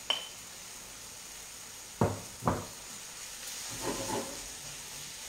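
Frying pan of pumpkin and sausage sizzling faintly as cooked millet is stirred in with a wooden spatula. There is a sharp clink right at the start, two knocks of the utensil against the pan about two seconds in, and the sizzle swells briefly about four seconds in.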